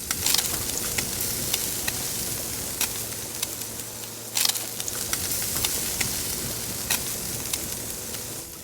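Duck meat sizzling over a charcoal grill, a steady frying hiss with fat crackling and popping, one loud pop about halfway through.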